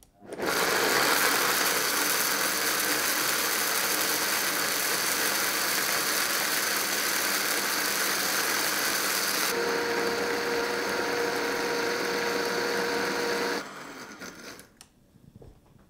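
Vitamix high-speed blender grinding whole rose hips with water, breaking the hard seeds down into a puree. It starts up about half a second in and runs steadily, takes on a steady hum about nine and a half seconds in, then is switched off near the end and spins down.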